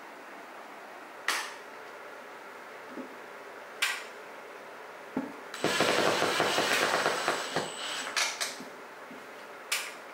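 Cordless impact driver running for about two and a half seconds, rapidly hammering a screw through a sliding-door rail into the wall, with a faint steady motor whine over the strikes. A couple of sharp clicks come before it and a few after.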